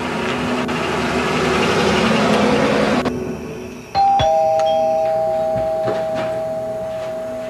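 A car drives up, getting louder, and cuts off suddenly about three seconds in. About a second later a two-tone ding-dong doorbell chime sounds: a short high note, then a lower note that rings on and slowly fades.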